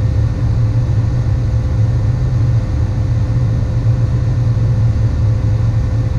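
Tractor engine running steadily, a constant low drone with a faint steady whine, heard from inside the cab.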